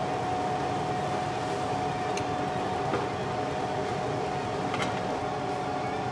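Motor oil burning in open flames: a steady rushing noise with a steady hum underneath and a few faint crackles, about two, three and five seconds in.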